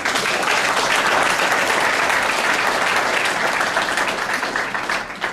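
Audience applauding: a dense, steady clapping that starts abruptly and eases slightly near the end.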